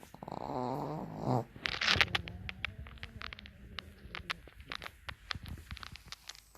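Pekingese dog snoring: a wavering, rattling snore lasting about a second and a half, then a loud breathy burst near two seconds, followed by a lower, steadier snore and a string of small clicks.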